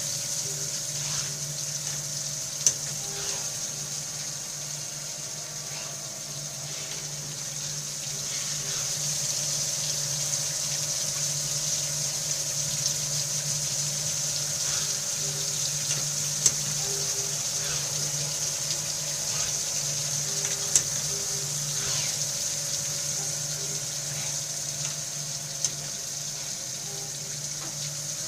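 Spinner TC 32 MD CNC lathe running with coolant flowing into the machining zone: a steady hiss of coolant over a steady machine hum, with a few sharp clicks.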